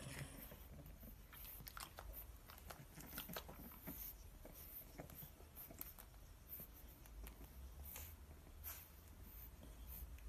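Faint, scattered soft clicks and rustles of puppies squirming and mouthing one another on a blanket, over a low steady hum.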